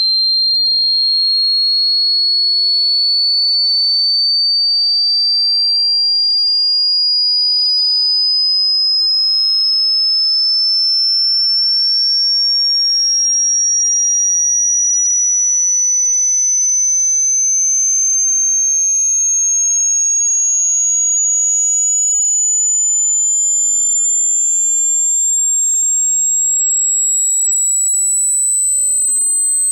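Hearing-test tone: a loud, high-pitched pure sine tone rising slowly and steadily in pitch, sweeping upward toward the top of the hearing range.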